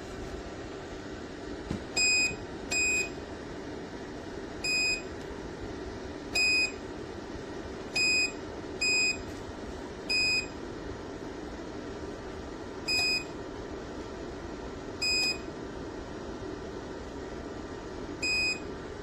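Electric space heater beeping about ten times at uneven intervals over its running fan, as its control buttons are pressed. Each beep is short and high-pitched.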